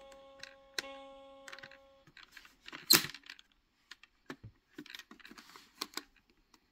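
Plastic buttons on a toddler's electronic activity toy being pressed: a press sets off steady electronic tones that fade over the first two seconds, then a run of plastic clicks and clacks, the loudest about three seconds in.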